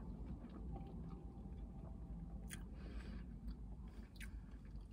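Faint chewing of a mouthful of Big Mac, with the mouth closed and a few soft clicks.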